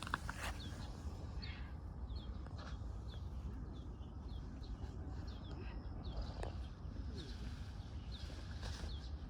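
A small bird chirping repeatedly, short high chirps about twice a second, over a steady low background rumble.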